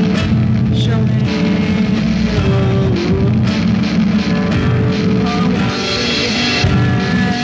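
Rock music with guitar: a full band track playing at a steady level.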